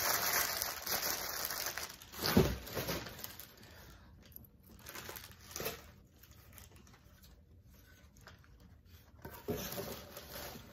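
Paper and packaging rustling and crinkling as things are moved about and searched through, with a single dull thump about two seconds in and scattered quieter rustles after it.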